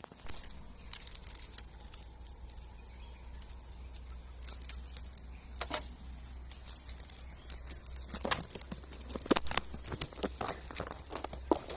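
Rustling and crackling with scattered sharp clicks, sparse at first and busier and louder in the last few seconds, over a steady low hum and a faint steady high-pitched buzz like insects.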